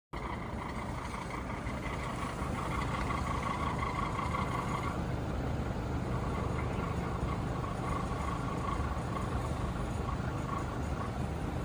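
Panasonic air conditioner outdoor unit running with an abnormal noise: a steady low rumble under a whining tone that shifts about five seconds in.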